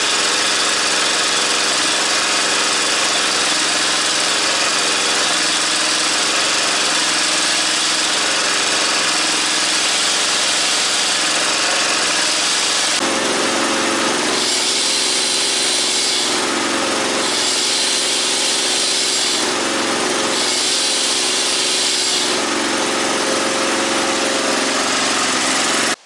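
Small petrol engine running steadily, driving the hydraulic pump of a homemade firewood processor. About halfway through its note changes as the hydraulically driven chainsaw bar is set running, with a higher hiss that comes and goes three times.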